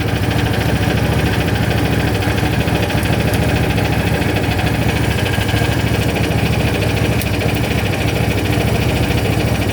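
Small lawn-tractor-class engine running at a steady, fast mechanical beat that keeps an even level and pitch throughout.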